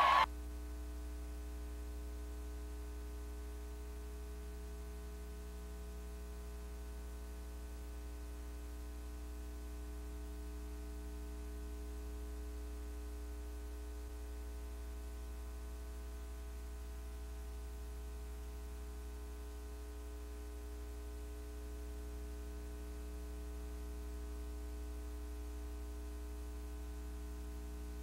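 Steady electrical hum with a stack of even overtones and a faint hiss, in place of a missing audio track; no game or crowd sound.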